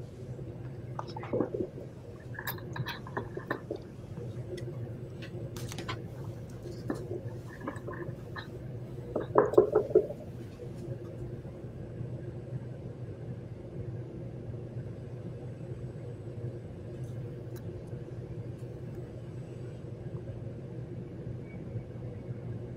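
Steady low electrical hum and room noise from an open microphone line, with scattered faint clicks and a few brief faint sounds. About nine seconds in there is a short, louder voice-like sound.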